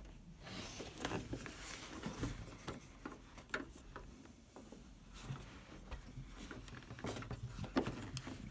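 Faint scraping, rubbing and small clicks of hard plastic as a turn signal bulb socket is wiggled against the opening of a VW MK6 Jetta halogen headlight housing, its tab not yet lined up to seat.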